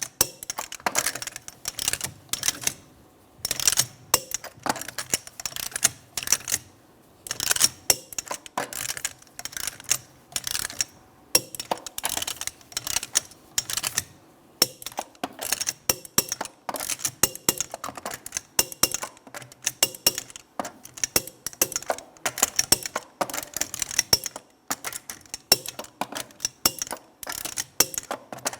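Hand ratchet or click-type torque wrench clicking in short repeated strokes as the wheel's lug nuts are tightened and torqued, with brief pauses between bursts of clicks.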